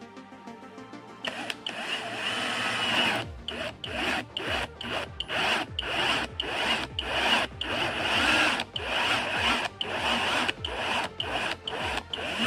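A hand tool working wood in repeated back-and-forth strokes, about two a second, starting about a second in.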